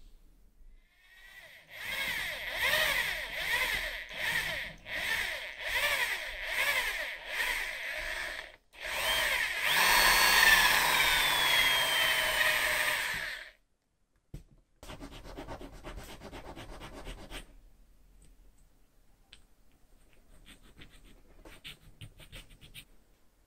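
Electric drill with a small bit boring into a clamped wooden part: the motor revs in short repeated bursts, then runs steadily for about five seconds and stops. Afterwards, quieter scraping of a flat hand file on a bamboo piece.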